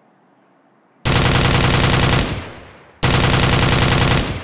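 Automatic rifle fire sound effect: two bursts of rapid shots, about a second each, the first starting about a second in and the second about three seconds in, each trailing off in a fading echo.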